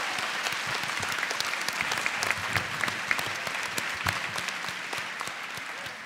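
Large audience applauding: a dense wash of hand claps that tapers off slightly toward the end.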